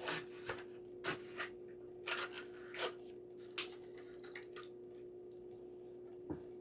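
Faint scattered clicks and crinkles of a toy car's plastic-and-cardboard blister package being handled and opened, over a steady low hum.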